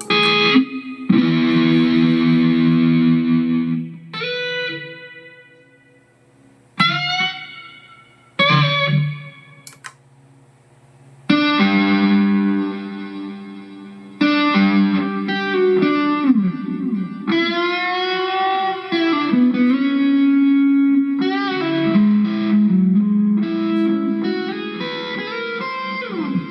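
Electric guitar played through a Mooer GE150 Pro LI multi-effects processor, with a lightly distorted tone. A ringing chord comes first, then a few short stabs, then a longer passage of chords and single notes with string bends.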